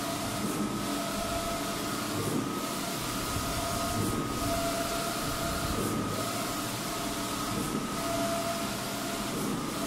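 Large-format inkjet printer running a print job: the print-head carriage shuttles back and forth across the banner with a steady mechanical hum and a whine that comes and goes every second or two with each pass.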